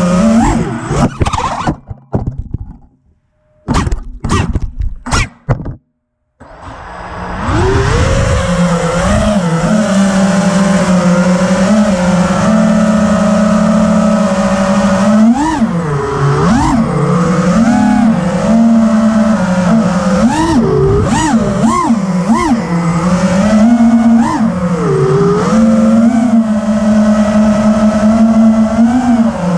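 FPV quadcopter's brushless motors whining as it flies, the pitch swooping up and down with the throttle. A few seconds in the sound cuts out almost entirely, with a few short bursts, before the motor whine comes back.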